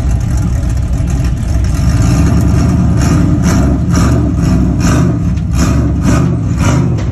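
Pickup truck engine running with a steady low rumble as the truck reverses up onto a flatbed trailer. From about three seconds in, a regular hissing pulse about twice a second rides over it.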